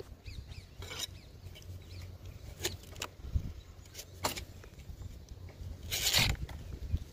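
Several sharp knocks and one longer, louder scraping burst near the end as a palm-wine tapper's wooden baton works the flower stalks of a palmyra palm. A steady low wind rumble on the microphone runs underneath, with faint bird chirps near the start.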